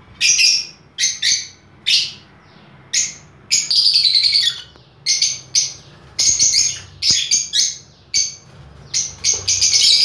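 Lovebirds calling with shrill, high-pitched chirps in a rapid series of short bursts, some longer, running together into continuous chatter near the end.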